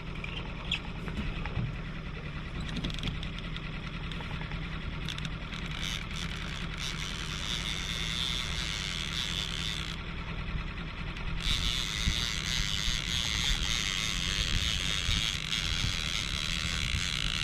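Small outboard motor running steadily at low trolling speed, with a fishing reel being cranked in two long stretches in the second half as a hooked fish is reeled in.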